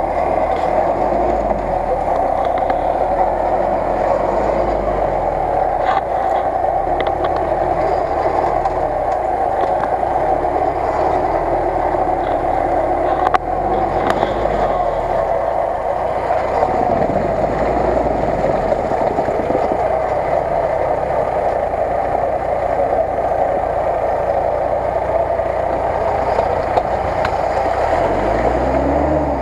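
Lada Niva's four-cylinder petrol engine running hard at high revs while the car is bogged in mud, steady for most of the time, with the revs swinging up and down near the end.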